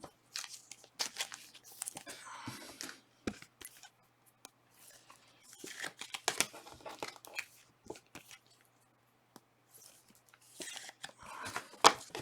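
Packaging of Panini Prizm soccer trading-card boxes and packs being torn open and crinkled, in bursts of crackly tearing and rustling with small clicks between them.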